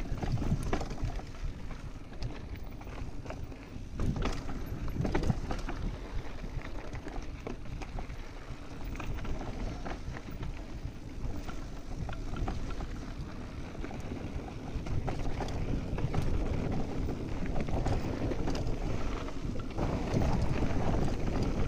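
Mountain bike riding down a dirt trail: tyres rolling over dirt and stones, and the bike rattling over bumps, with wind rushing over the microphone. A cluster of sharper knocks comes about four to five seconds in.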